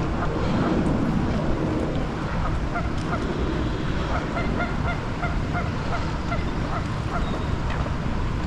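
Waterfowl calling in a run of short, repeated calls, about three a second, starting a couple of seconds in, over steady wind on the microphone.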